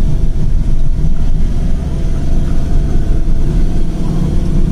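Vehicle driving along a road: a loud, continuous, uneven low rumble of engine and road noise.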